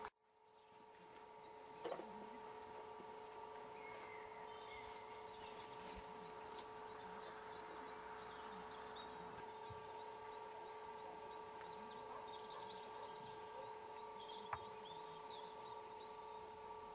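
Faint, continuous trilling of crickets, fading in at the start, over a steady low hum.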